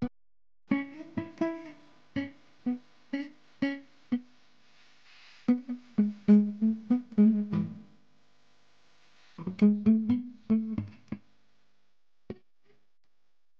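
Guitar music: plucked notes that ring and die away, played in three short phrases with brief pauses between them, then a single last note near the end.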